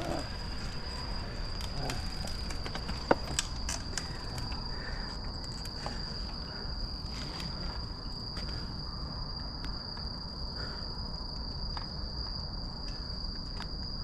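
Crickets trilling in one steady, unbroken high-pitched tone, over a low rumble, with a few sharp clicks, the loudest about three seconds in.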